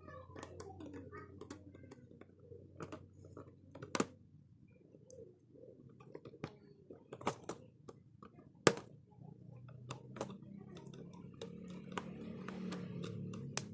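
Scattered small clicks and taps of tools and parts being handled while a broken Samsung Android phone is taken apart, with two sharper knocks about four seconds and about nine seconds in. A low murmur, like faint voices, comes in over the last few seconds.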